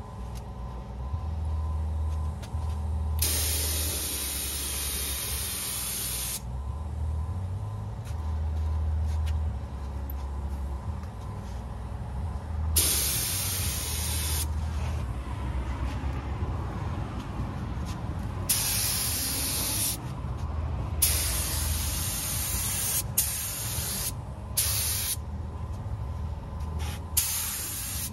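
Compressed air hissing from a hand-held air gun in about eight bursts, each starting and stopping sharply and lasting from half a second to about three seconds, over a steady low rumble.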